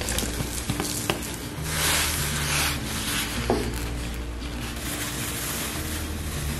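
Background music over water bubbling in a steel pot of dried red chilies. A wooden spoon stirs the chilies and clicks against the pot about a second in and again near the middle.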